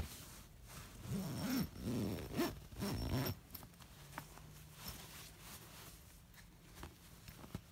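Zipper on a fabric dog-bed cover being pulled closed over the cushion in several short tugs during the first three seconds or so, followed by a few faint clicks.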